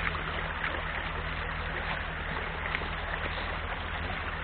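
Steady rushing of a shallow stream over stones, mixed with the low rumble of wind on the microphone. A few faint crunches of footsteps on the stony bank.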